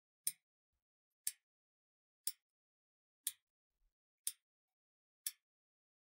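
Clock ticking once a second: six short, high-pitched ticks, all alike, with silence between them.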